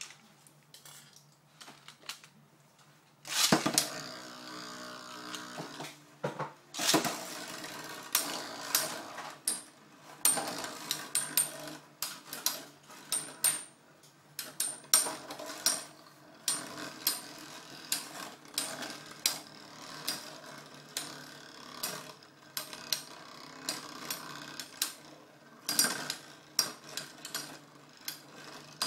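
Two metal Beyblade spinning tops, Basalt Horogium and Killer Beafowl, enter a clear plastic stadium about three seconds in. They whir and scrape as they spin across its floor, with repeated sharp metallic clacks each time they collide.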